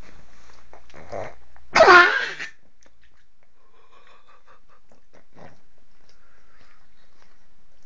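A pug sneezing once, a loud sudden burst about two seconds in, just after a short intake of breath.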